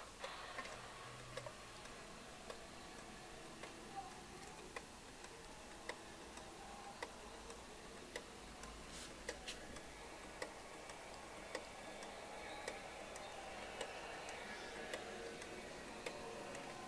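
Quartz pendulum wall clock ticking steadily, about one faint tick a second. The ticks come from its Japanese-made Tochigi Tokei quartz movement.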